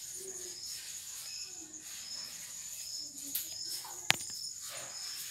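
Insects chirping: short high chirps repeat about every two-thirds of a second over a steady high whine, and there is one sharp click about four seconds in.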